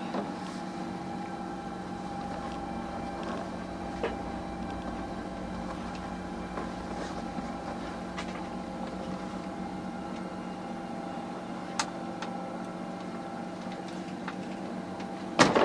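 Sailing yacht's inboard diesel engine running steadily, holding the boat head to wind. Near the end a wave slaps hard into the hull with a loud splash.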